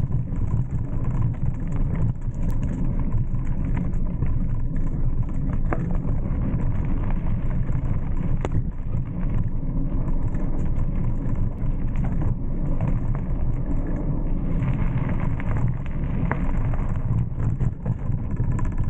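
Mountain bike rolling along a dirt singletrack: a steady low rumble of wind and tyre noise on the moving camera's microphone, with scattered small clicks and rattles.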